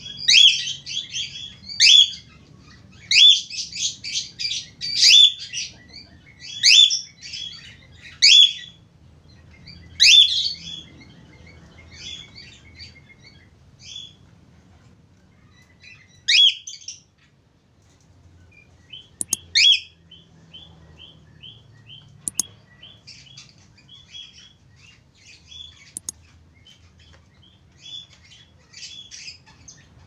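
Cockatiel chirping and whistling in quick bursts of short rising notes, loud and dense over the first ten seconds, then sparser, with rapid strings of quieter notes later on.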